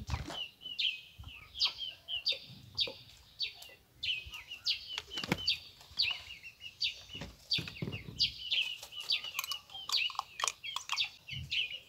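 Birds chirping busily, short high calls repeating several times a second without a break, with a few dull knocks among them.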